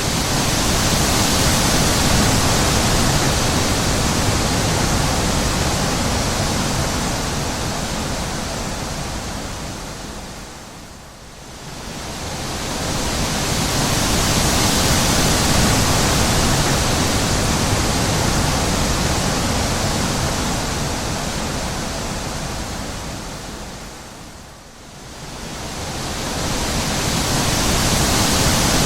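Wind blowing as a steady full-range rush that swells and fades in long gusts. It dies down almost completely twice, about 11 and 25 seconds in, then builds back up.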